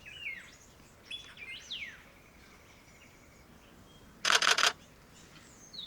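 Camera shutter firing a quick burst of about five or six clicks about four seconds in: a handheld exposure bracket taken on continuous shooting. Before it, rainforest birds call with short falling whistles and one held whistle.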